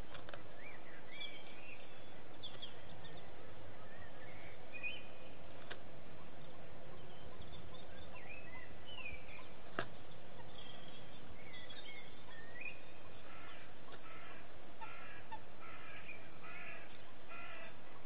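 Small wild birds calling outside, short whistled notes that rise and fall, then a phrase repeated about six times near the end, over a steady hiss. Two sharp knocks cut through, one about six seconds in and a louder one near ten seconds.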